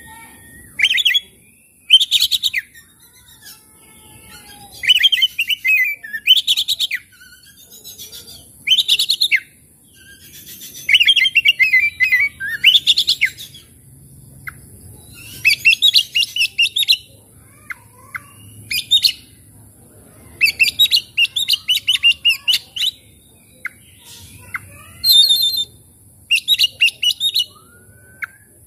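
Oriental magpie-robin (kacer) singing loud, short phrases of rapid notes, about a dozen of them with brief pauses in between.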